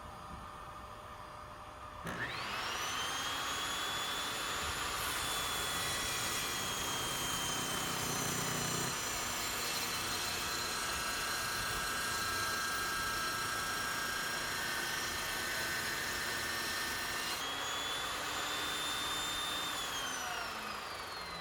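Table saw fitted with a 60-tooth carbide fine-wood blade, starting up about two seconds in with a rising whine. It makes a 45-degree bevel cut through wood, its pitch sagging slightly under load with added hiss for most of the run. Near the end it is switched off and spins down with a falling whine.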